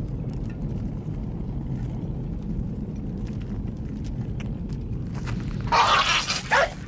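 A steady low outdoor rumble, broken near the end by a sudden loud outburst of a dog snarling and barking, in short noisy bursts.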